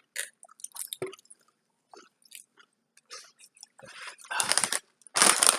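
Someone chewing crunchy kettle-cooked potato chips, with scattered short crunches. Louder, denser crackling comes in near the end.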